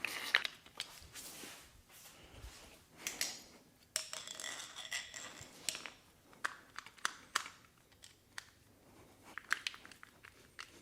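Hand work on a car window regulator assembly: scattered light clicks and knocks of metal and plastic parts, with a longer rasping stretch about four seconds in.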